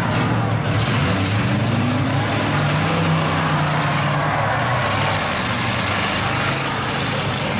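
Several pickup truck engines running and revving in a demolition derby, their pitch rising and falling over a continuous loud din.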